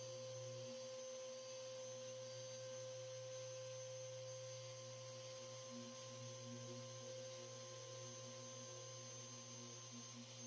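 Faint, steady machine hum with several steady tones: a Mirka Deros electric random-orbit sander with dust extraction, running as it sands roof paint down to metal.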